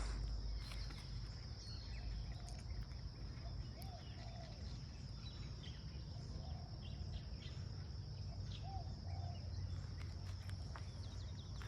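Steady high-pitched insect chorus, like crickets, with a low rumble underneath and a few short bird calls scattered through, about four seconds in, again around six and a half, and around nine.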